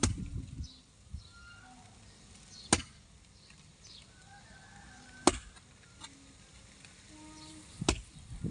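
A long-handled digging tool striking hard, dry ground four times, about two and a half seconds apart, each a sharp chop. Dry grass and soil crunch and scrape just after the first strike.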